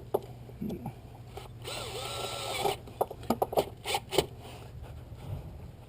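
Cordless drill spinning for about a second, its pitch rising and falling, followed by a quick run of sharp clicks and knocks from the tool and parts being handled.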